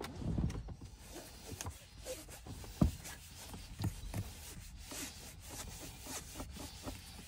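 Bamboo fibre scrub pad, damp with all-purpose cleaner, rubbing back and forth over a plastic car door panel in quick, irregular scrubbing strokes. A sharper knock comes about three seconds in.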